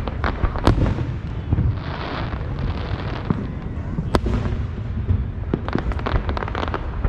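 Many fireworks going off at once: a steady low rumble of distant booms with sharp cracks and pops on top, a brief hiss about two seconds in, and a cluster of rapid crackles near the end.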